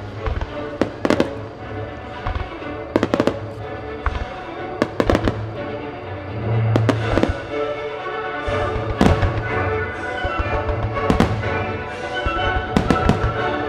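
Nomura Fireworks' music starmine display: a dozen or so sharp firework bangs, some in quick pairs, with crackling between them, over steady music played for the show.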